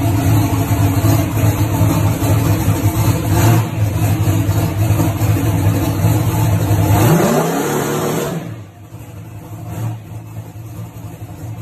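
Turbocharged Fox-body Mustang drag car's engine running loudly and steadily, revving up in a short rising sweep about seven seconds in, then falling away sharply about a second later.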